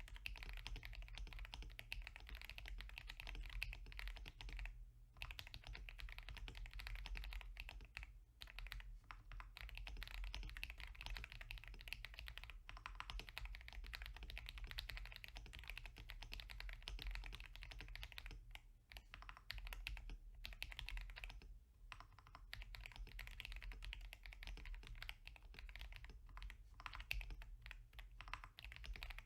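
Continuous typing on a KBDFans KBD67 Lite R3 mechanical keyboard with lubed KTT Rose linear switches and Gazzew 65g springs: a rapid stream of key clacks, broken by a few short pauses.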